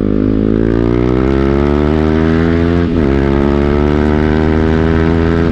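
BMW G 310 GS single-cylinder engine through an Akrapovic full-system exhaust, accelerating under load: the pitch climbs, drops sharply at an upshift about three seconds in, then climbs again into another shift at the end.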